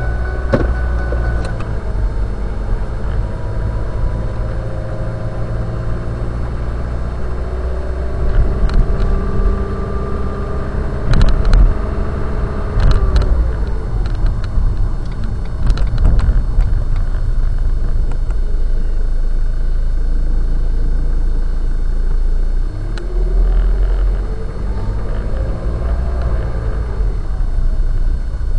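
Car engine and road rumble heard from inside a moving car, the engine note slowly rising and falling as it drives. A cluster of sharp knocks and rattles comes in the middle.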